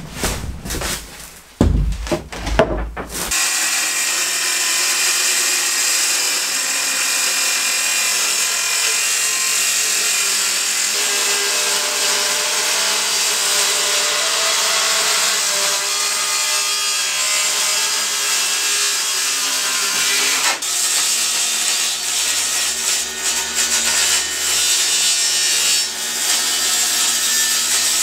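Power saw cutting through a plywood wall panel in one long, steady cut that starts about three seconds in, pauses briefly about two-thirds of the way through, and runs on to the end, with a few knocks and handling clatter before it starts.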